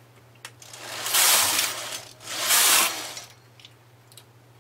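Knitting-machine carriage pushed across the needle beds and back, knitting two rows: two loud swells of sliding, rattling noise about a second long each, the second just after the first.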